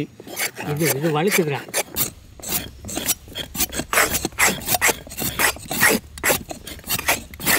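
Steel spoons scraping the skin off raw bottle gourds: quick, repeated rasping strokes, about three a second, that begin about two seconds in.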